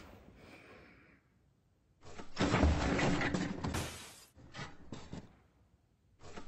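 Bedding rustling close to the microphone as someone moves under a blanket: a loud noisy rustle of about two seconds starting about two seconds in, a few shorter rustles after it, and a sharp click at the very end.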